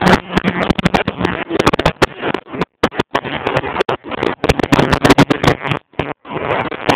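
Wind buffeting a phone's microphone in a moving car, a ragged crackling rush that keeps cutting out for moments, with the car's engine drone faintly under it near the start.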